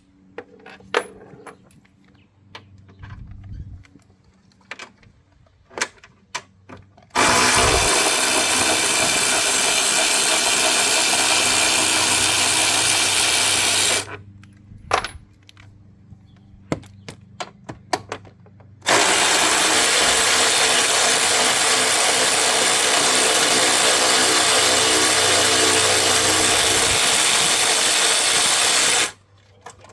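Power tool running in two long steady stretches, about seven and ten seconds, as it backs out the 13 mm battery-tray bolts. Light metal clicks and clinks of bolts and socket come in the pauses between.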